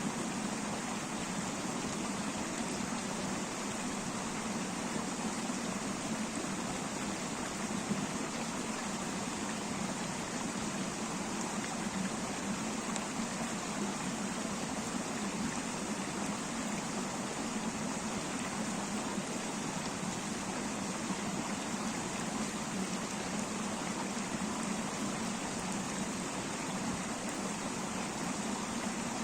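A river flowing over rocks: a steady, even rush of water with no change in level.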